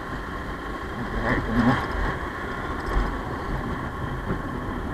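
Motorcycle running at steady road speed, its engine mixed with road and wind noise.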